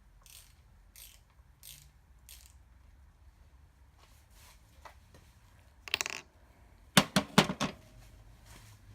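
Metal hand tools and parts clicking and rattling during a motorcycle teardown: a few soft swishes early on, a short rattle about six seconds in, then a quick run of sharp metallic clicks, the loudest part, about seven seconds in.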